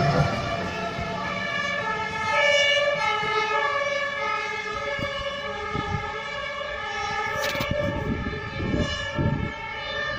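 DB class 101 electric locomotive's traction converter whining in several high tones that shift pitch in steps as the train draws away, with a few wheel knocks over the rails near the end.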